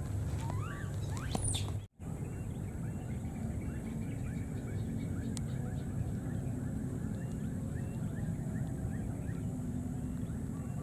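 Steady low rumble of wind on the microphone, under a continuous run of short, quick chirping calls from small animals in the background. The sound cuts out for a moment about two seconds in.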